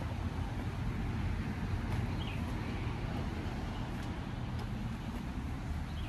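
Steady low background rumble with a faint hiss, with no distinct events beyond a few faint ticks.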